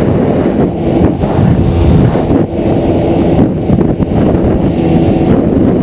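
Motorboat engine running steadily while the boat is under way, with heavy wind buffeting the microphone.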